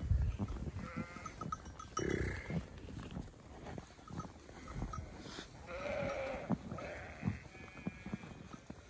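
A flock of sheep bleating, several overlapping calls with the longest about six seconds in, over scattered short knocks.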